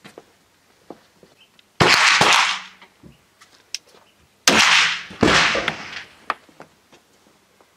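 Three gunshots on an open-air range, each followed by a reverberating tail lasting most of a second: one about two seconds in, then two in quick succession about four and a half and five seconds in. Faint clicks are heard between the shots.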